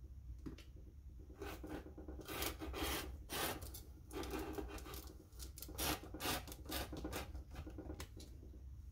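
Rotary cutter blade rolling along the edge of a metal ruler, slicing through a paper template and the T-shirt fabric beneath, in a run of short scraping strokes.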